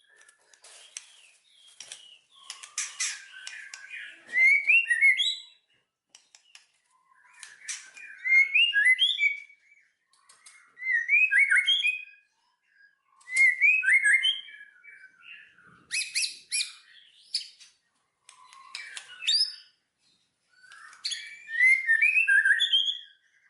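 Songbird singing: short, quick warbling phrases of chirps and whistled notes, repeated about every two to three seconds with brief pauses between.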